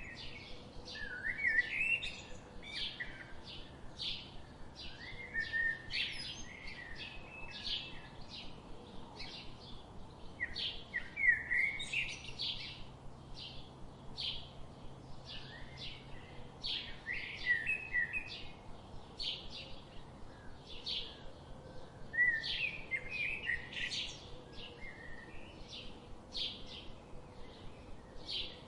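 Songbirds chirping and singing: a steady run of short, high chirps, two or three a second, with louder warbled phrases breaking in every few seconds.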